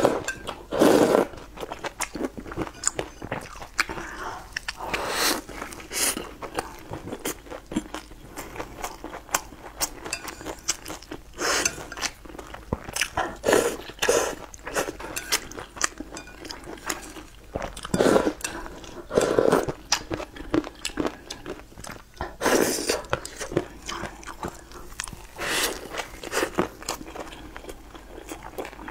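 Close-miked eating: hot and sour sweet potato noodles slurped from a bowl of soup, alternating with chewing and crunchy bites of a crisp sesame flatbread. Many small wet clicks, with louder slurps or bites every few seconds.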